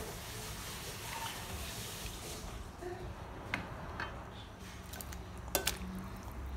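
Wooden spatula stirring soup in a stainless steel pot, with a few sharp knocks against the pot, the loudest near the end, over a steady low hum.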